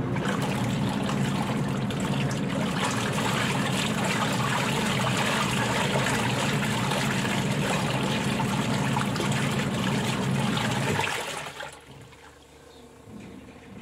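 Twin-tub washing machine's wash tub churning: a steady motor hum under loud sloshing and swirling of water and clothes. The motor hum and churning cut off about eleven seconds in, leaving only faint water movement.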